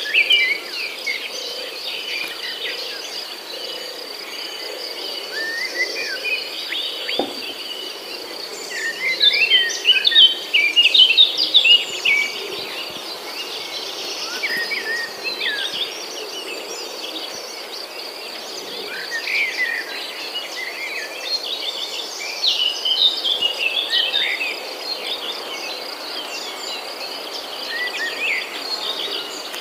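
Birds chirping and calling in short bursts over a steady, pulsing high insect trill like crickets; the bird calls are busiest about nine to twelve seconds in and again past twenty seconds.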